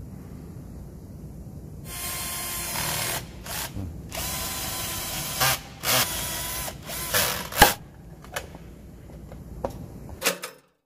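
Cordless drill-driver driving screws to fix a CCTV junction box to the wall: a run of about a second, a longer run, then several short trigger bursts and a sharp click.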